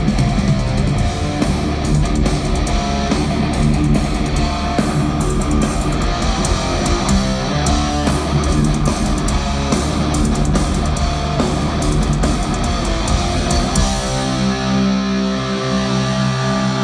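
Thrash metal band playing live: distorted electric guitars riff over fast, dense drumming. Near the end the drums drop out, leaving held guitar chords ringing.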